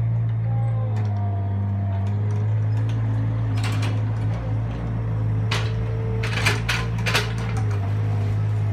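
Avant compact articulated loader with a log grapple driving across the yard, its engine running steadily with a wavering whine above the drone. Several sharp metallic knocks come through the middle part, bunched between about three and a half and seven seconds in.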